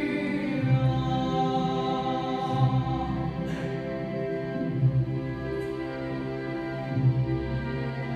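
Pipe organ playing slow, sustained chords, its pedal bass moving to a new note about every two seconds.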